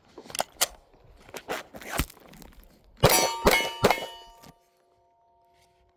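Metal clicks and clacks from handling a Glock 17 pistol in a Roni conversion kit. About three seconds in comes a sharp metallic clang and clatter, which leaves a ringing metal tone that fades over about two seconds.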